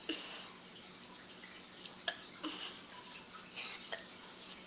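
Faint scattered clicks and short taps, several in a few seconds, over a low steady hiss.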